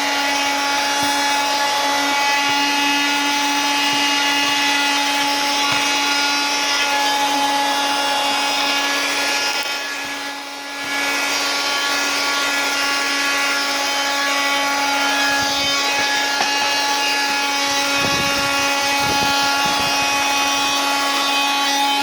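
Small 12V handheld car vacuum cleaner running with a steady, high motor whine. The level drops briefly about halfway, and a few low knocks come near the end.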